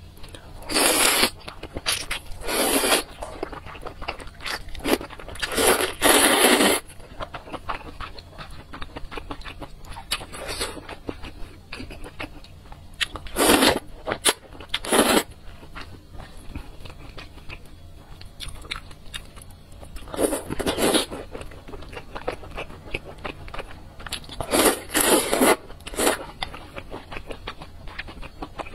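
Close-miked eating of noodles in spicy broth: loud slurps of noodles every few seconds, some about a second long, with quieter chewing between them.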